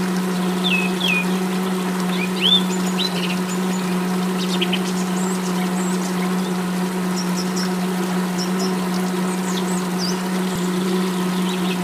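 Small mini water pump humming steadily while water trickles from its hose into a shallow pool. Birds chirp in short calls throughout.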